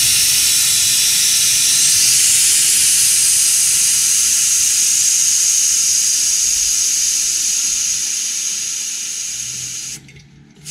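Compressed air hissing steadily out of a car's aftermarket air-suspension tank as it is bled down, weakening slowly as the pressure drops and stopping about ten seconds in.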